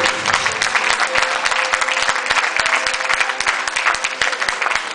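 Church congregation applauding steadily, many hands clapping at once, with a few faint held musical notes underneath.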